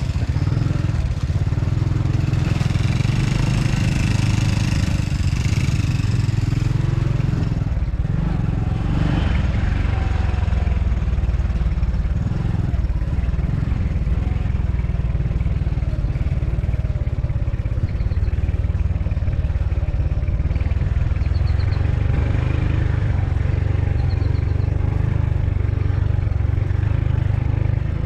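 Small step-through motorbike engine running steadily as it is ridden over a rough dirt track, a constant low rumble throughout.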